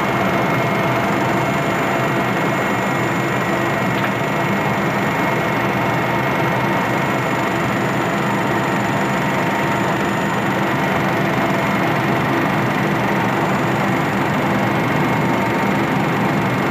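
Military helicopter in flight heard from inside the cockpit: the steady drone of its turboshaft engines and rotor, with several constant whining tones above it.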